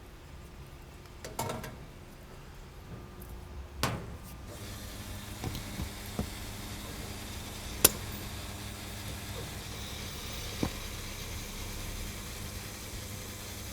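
A car being refuelled at a fuel pump: a few clicks and clunks of the nozzle being handled, then from about four and a half seconds a steady hiss of fuel flowing with the pump humming underneath. Single sharp clicks break in now and then, the loudest a little before the eighth second.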